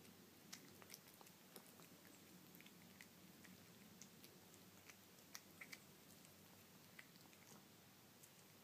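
A cat eating wet canned cat food off a plate: faint, irregular chewing and licking clicks over a low, steady room hum.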